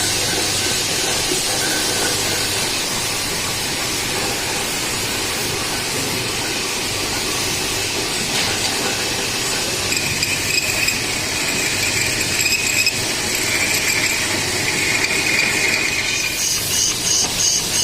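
Industrial machinery running steadily with a loud hissing rumble, a high whine joining in about halfway, and a regular pulsing of two or three beats a second near the end.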